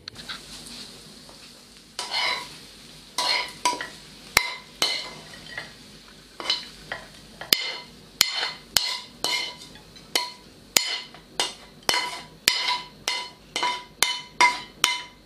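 Utensil scraping and knocking against a frying pan as fried king oyster mushrooms are pushed out of it, in quick strokes about two a second, each with a short metallic ring.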